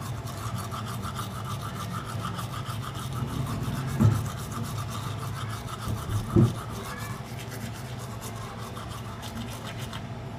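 Oral-B manual toothbrush scrubbing teeth with rapid back-and-forth strokes, a wet scratchy rubbing. Two short low bumps come about four seconds in and again two seconds later.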